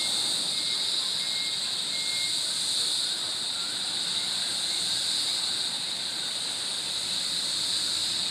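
Steady, high-pitched chorus of forest insects, an unbroken shrill buzz that holds on without a pause.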